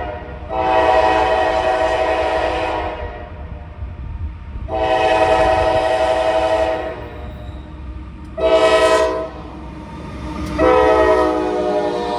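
Norfolk Southern locomotive horn sounding its chord in the grade-crossing pattern: two long blasts, a short one about eight seconds in, then a final long blast that fades at the end. Under the horn is the steady low rumble of a slow, loaded coal train rolling past.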